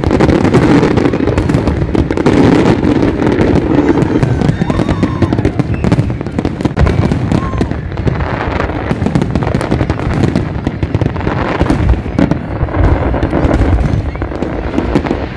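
Large fireworks display going off in a continuous dense barrage of bangs and crackling, with people's voices underneath.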